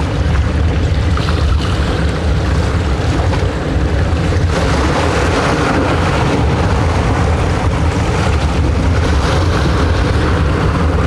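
A boat's engine running steadily under way, with a continuous low drone and wind rushing on the microphone.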